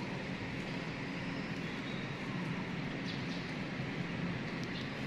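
Steady background noise with a low hum and a few faint ticks; no distinct sound event.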